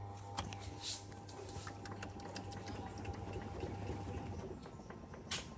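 Washing machine running with a steady motor hum and irregular clicks and knocks, part of the banging noise it is making. The hum stops about four and a half seconds in, and a sharper knock comes near the end.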